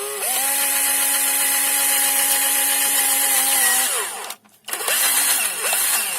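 Electric drill reaming out the end of a freshly cut brake tube, where the pipe cutter has rolled the edge inward. It spins up at once and runs steadily for about four seconds, then winds down. A second, shorter run with wavering speed follows and winds down near the end.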